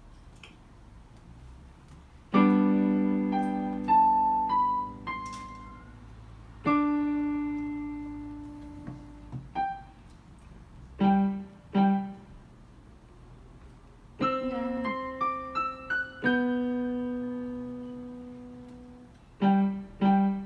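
Yamaha portable electronic keyboard played with both hands in a piano sound. Chords are struck and left to ring and fade, with a melody stepping upward over them, and pairs of short detached chords between them.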